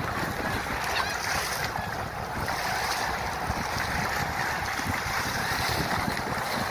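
Wind buffeting the microphone over the steady wash of waves at the shore.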